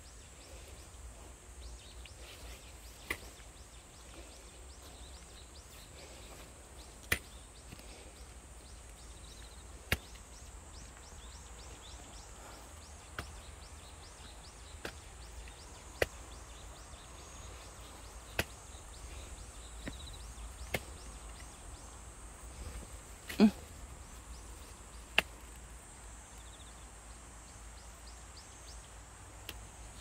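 Quiet rural outdoor ambience: a faint steady high hiss and low rumble, broken by sharp clicks every two to three seconds, with a patch of quicker faint ticking in the middle.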